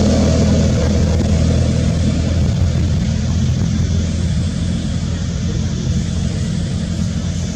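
A motor vehicle's engine running steadily, slowly fading.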